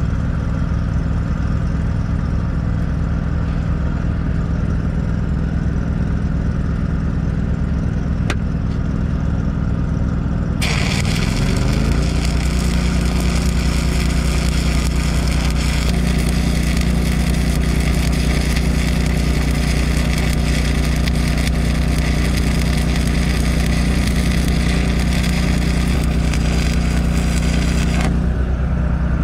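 Engine-driven welding machine running steadily; about eleven seconds in a stick-welding arc with 7018 rods at about 128 amps strikes and crackles and hisses for about seventeen seconds while the engine speeds up under the load, then the arc breaks off near the end. The welder finds the setting a little cold for this bead.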